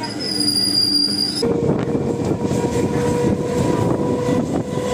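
Chennai suburban electric train running, heard from inside the moving coach: wheels rumbling on the rails. A steady high whine in the first second and a half gives way to a lower steady tone over the rumble.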